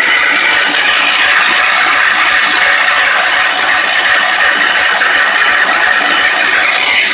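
Wheel Horse garden tractor's 10 hp Kohler engine being started after sitting three years, a steady loud mechanical rattle with no let-up.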